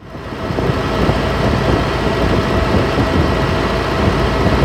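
Hitachi Zaxis 210LC excavator's Isuzu four-cylinder diesel engine running steadily, fading in over the first half second, with a faint high whine over the engine noise.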